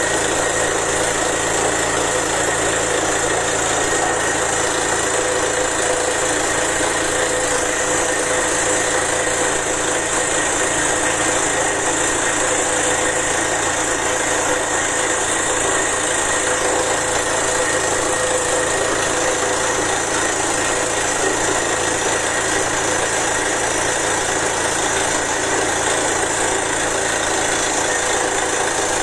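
Borewell drilling rig running, a loud steady engine and machine din that holds even throughout.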